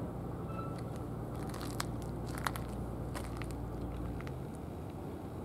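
A low steady rumble that drops away about four seconds in, with a short scatter of sharp crackling clicks about two seconds in.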